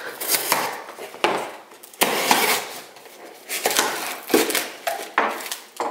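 A cardboard shipping box being opened: a small blade slitting the packing tape, then the flaps being pulled apart. Irregular scraping, tearing and cardboard rustling, with a sharp rip about two seconds in.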